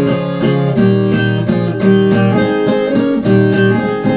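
Viola caipira playing an instrumental passage of plucked notes and strums between sung lines of a moda de viola.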